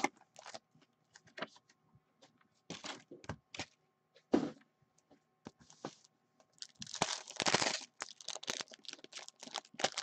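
Cardboard box of 2019-20 Upper Deck Synergy hockey card packs being opened and its foil packs handled and torn open: scattered crinkles and clicks, with a longer stretch of crinkling and tearing about seven seconds in.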